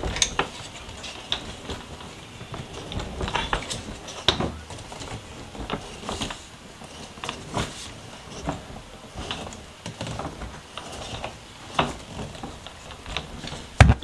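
360-degree spinner wheels of a Level8 hard-shell carry-on suitcase rolling and swivelling on a hard floor, giving irregular clicks and rattles over a low rumble. A sharp knock comes near the end.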